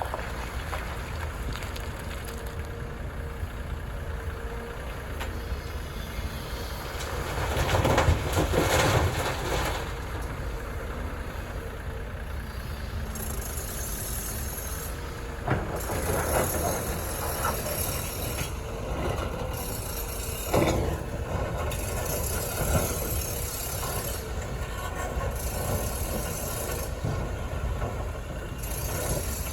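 Heavy diesel machinery at work: a CAT 330F excavator and dump trucks running steadily, with a louder, noisier surge about eight seconds in and a couple of sharp knocks later on.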